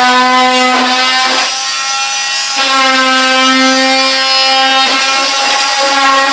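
Mini chainsaw running at a steady high whine as it cuts into an Easter egg's cardboard box; the pitch and level dip briefly about a second and a half in, then pick back up.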